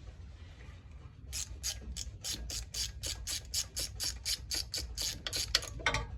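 Ratchet wrench clicking in quick, even strokes, about three a second, starting a second or so in.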